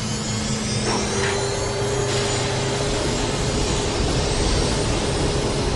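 The Big Wind's twin MiG-21 turbojet engines running at full throttle: a steady, loud rushing noise, with a constant whine that sets in about a second in.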